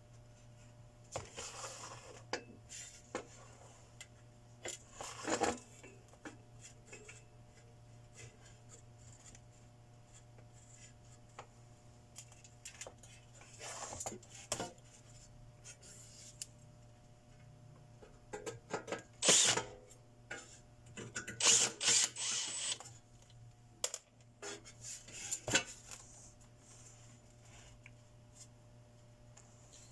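Hand tools and small metal parts being handled on a workbench: irregular clinks, taps and clatters, busiest about twenty seconds in, over a steady low hum.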